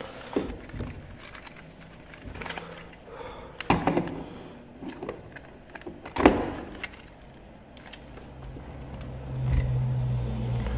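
Hard plastic knocks and clicks from handling a toy RC car. Near the end a steady low motor hum starts up and grows louder.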